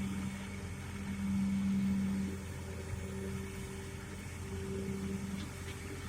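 Excavator's diesel engine running with a steady low hum, swelling a little about a second in and then settling back.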